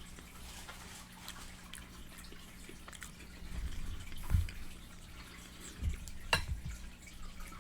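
Wet chewing and lip smacking close to the microphone as someone eats fried chicken: scattered sharp mouth clicks over a low steady hum, with a few heavier low thumps in the middle.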